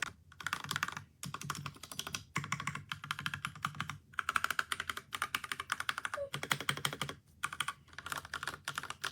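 Typing on an OUPARY 60% mechanical keyboard with red linear switches: rapid key clacks in runs of a second or two, broken by short pauses.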